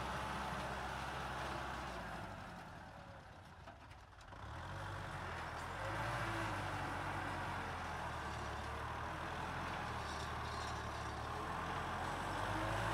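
Kubota M6040SU tractor's diesel engine running steadily, plowing. The sound fades down around three to four seconds in, then comes back.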